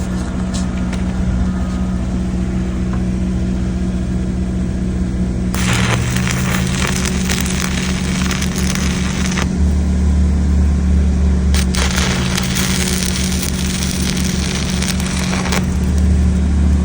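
Welding arc crackling in two passes of about four seconds each, starting about five and a half seconds in and again about twelve seconds in, tacking steel seams together. An engine drones steadily underneath throughout.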